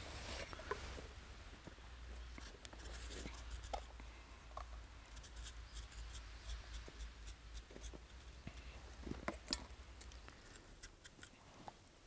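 Knife blade shaving the skin off a lotus root, a faint run of short scraping strokes that grows busier in the second half.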